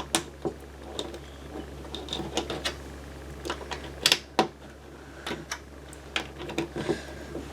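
Plastic Lego bricks clicking and clattering as they are sorted and pressed together by hand, in irregular sharp clicks with a louder cluster about four seconds in.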